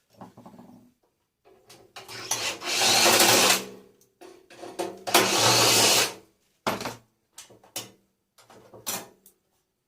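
A small power tool running in two bursts of a second or so each, with shorter knocks and rattles of handling around them.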